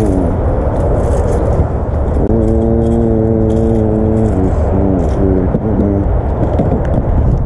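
Boat running on the water, with a heavy low rumble of engine, wind and hull throughout. A droning engine note holds steady for about two seconds, then dips and wavers before fading out.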